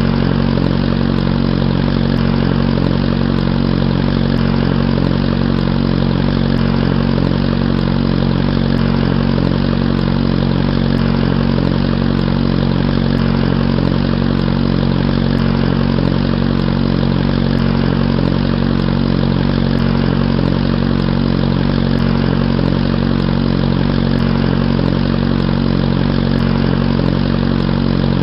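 Honda CBR600F motorcycle's inline-four engine idling steadily at an even pitch.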